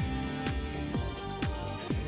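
Electronic background music with a steady kick drum about twice a second.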